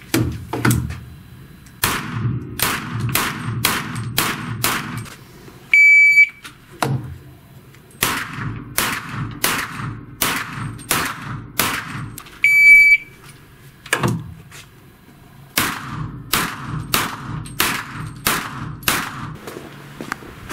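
Open-class race pistol with a red-dot sight and compensator firing three strings of rapid shots, about eight to ten shots each. A short, high electronic beep comes before the second and third strings: the range timer's start signal.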